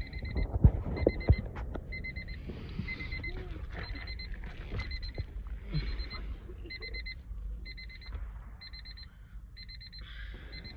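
A 1999 Honda Civic's warning chime beeping steadily, a little more than once a second. A few sharp knocks come in the first second and a half.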